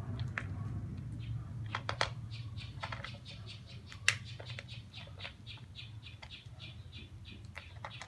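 A bird pecking dry dog kibble in a plastic bowl: quick, uneven clicks and taps, two or three a second, over a steady low hum.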